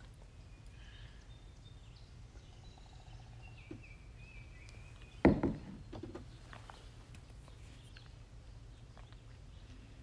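Faint birds chirping over a steady low background rumble, with one sudden thump about five seconds in.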